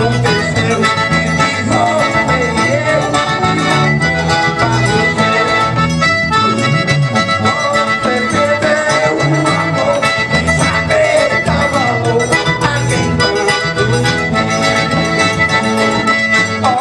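A live forró band playing without vocals: accordion carrying the melody over electric bass lines and a steady zabumba drum beat.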